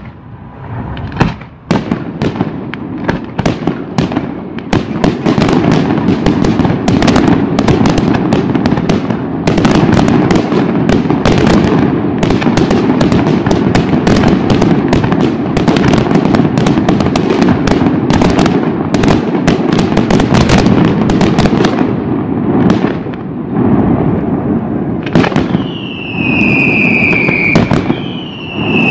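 Aerial fireworks shells launching and bursting in a dense, continuous barrage of bangs and crackle, after a few separate bangs at the start. Near the end, high whistles fall in pitch.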